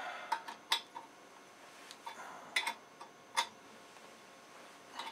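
A handful of separate sharp metal clicks and clinks from a hand tool working the clamp nuts that fix a chainsaw-mill bracket to a chainsaw bar as they are tightened.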